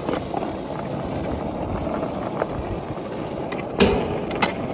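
Skateboard wheels rolling steadily over the ramps, then a sharp clack of the board near the end, followed by a smaller one.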